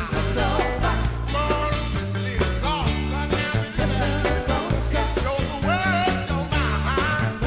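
Live reggae-pop band music with singing: a steady bass-and-drum groove under a sung vocal line.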